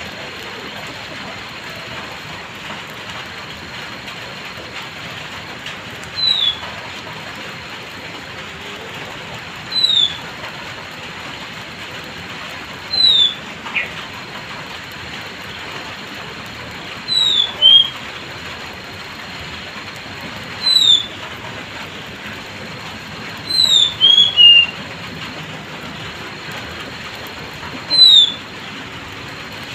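Oriental magpie-robin giving short, falling whistled notes, one every three to four seconds and now and then two or three close together, starting about six seconds in. Underneath runs the steady hiss of light drizzle.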